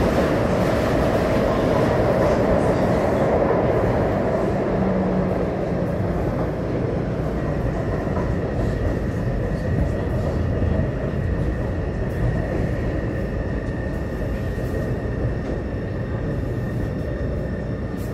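Taipei Metro C301 train running, heard from inside the passenger car: a steady rumble of steel wheels on rails that eases off gradually, with a thin steady whine coming in about halfway through.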